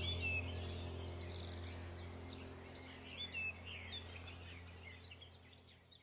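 Background nature soundtrack of birds chirping and calling over a low steady hum, fading out steadily toward the end.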